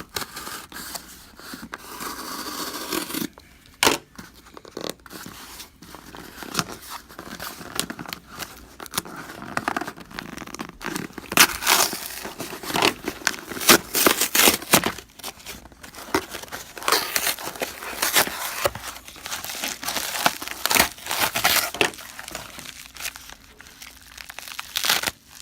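Packaging being opened by hand: tearing and crinkling, with many short sharp rips, busiest and loudest in the middle stretch.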